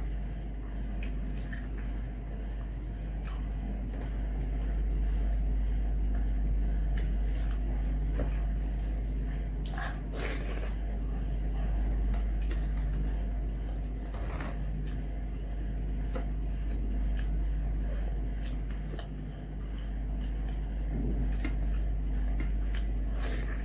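Close-up eating sounds: fingers squishing and mixing soft rice with egg yolk on a glass plate, and chewing, as scattered small clicks with a few sharper ones about ten seconds in and near the end. A steady low hum runs underneath.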